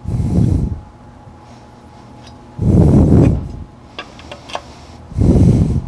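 A crescent wrench gripping and bending the mounting ear of a skid plate: three low, rough rubbing sounds, each under a second, and a few light metallic clicks about four seconds in.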